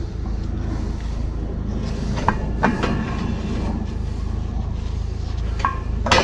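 A few sharp metal clanks and clicks over a steady low hum, the last of them ringing briefly: tools and parts being worked on an old condenser fan motor and blade that have been stuck together for decades.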